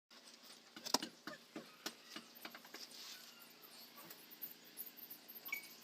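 Faint, irregular small clicks and taps, the loudest about a second in.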